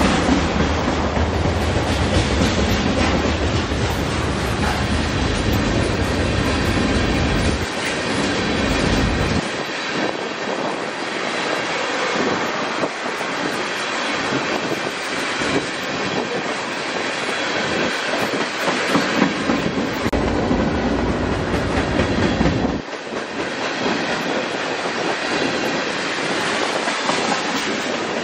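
Freight cars of a CN train rolling past, steel wheels clattering over the rail joints with a continuous rumble that swells and fades as heavier sections go by.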